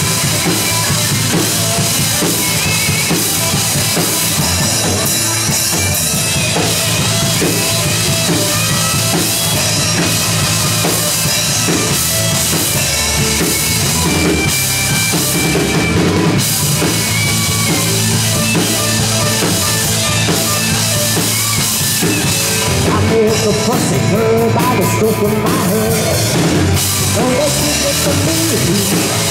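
Live rock band playing electric guitars over a drum kit, with a steady bass-drum and snare beat under the guitars and no singing.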